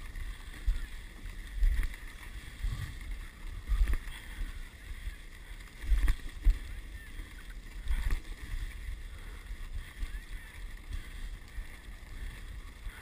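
Dog sled gliding along a snow trail: a steady hiss of the runners, broken by irregular low thumps as the sled jolts over bumps.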